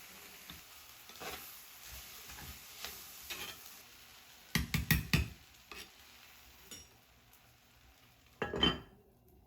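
Food sizzling in a frying pan while being stirred, with scrapes and then a few loud clatters of a utensil against the pan about halfway through and once more near the end.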